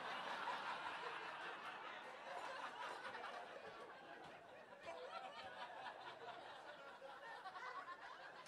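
Audience laughing at a stand-up comedy show, a dense crowd laugh that slowly dies away.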